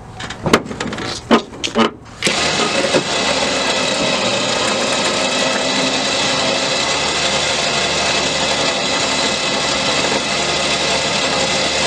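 A few clicks and knocks, then from about two seconds in an electric trailer winch motor starts and runs with a steady whine, pulling a car up onto the trailer.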